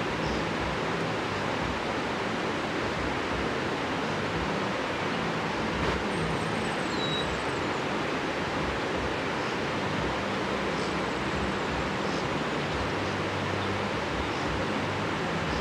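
Steady rushing of running water, with a couple of faint, short bird chirps near the middle.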